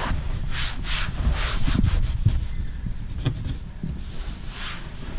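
A cloth being rubbed back and forth over a car's dashboard to wipe off dust: a series of rubbing strokes, quicker in the first two seconds and more spaced out after.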